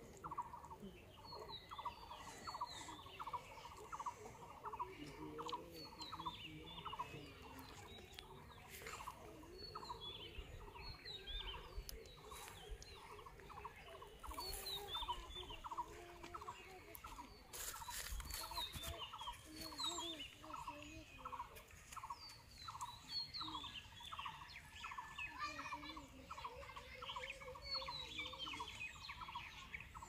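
Birds calling: repeated short falling chirps over a pulsing call about twice a second, with lower wavering calls underneath.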